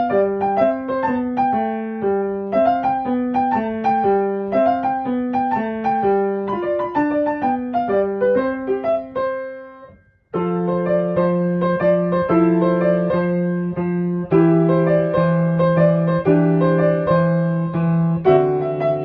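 Background piano music: a melody of quick single notes fades out about ten seconds in, then a new passage of repeated piano chords begins.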